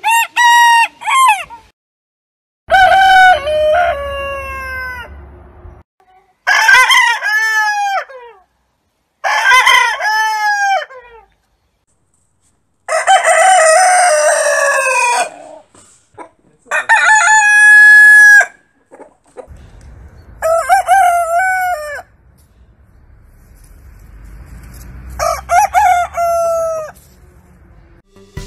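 Roosters crowing, a series of about eight crows in turn, each one to three seconds long, many trailing off downward in pitch at the end.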